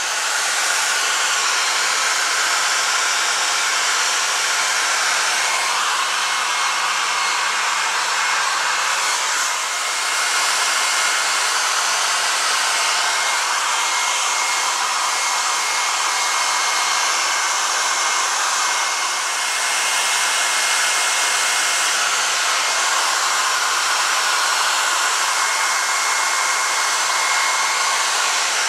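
Handheld electric hair dryer blowing steadily on an animal's fur, a constant rush of air with a faint high whine from its motor. The sound dips briefly twice, about a third and two thirds of the way through.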